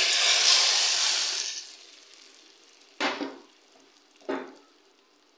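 Hot tadka oil with whole dried red chillies and green chillies poured onto cooked moong dal, sizzling hard and dying away within about two seconds. Two short, separate noises follow about three and four seconds in.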